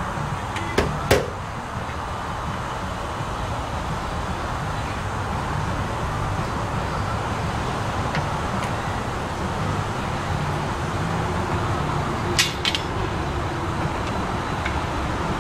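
Steady background noise like passing road traffic, with a few sharp clicks: two about a second in and two close together near the end.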